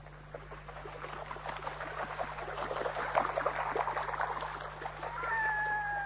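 A flock of birds chattering in dense, rapid clucking calls that swell to a peak midway and then thin out. About five seconds in, a single long, drawn-out call with a slight downward slide begins.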